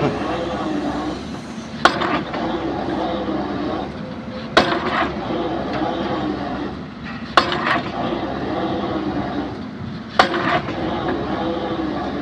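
Excavator drop hammer striking a concrete pile four times, about one blow every three seconds, each a sharp bang with a short ring. The excavator's diesel engine runs steadily between the blows.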